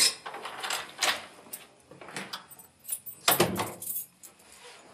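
Keys jangling and clicking in a front door's rim deadbolt as the door is unlocked, a run of separate sharp clicks and knocks, with the loudest knock from the door itself about three seconds in.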